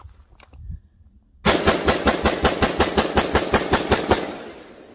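FN SCAR 17S 7.62×51 mm rifle fired in a fast string of about twenty shots, roughly seven a second, starting about a second and a half in; the shots stop near the end and echo away.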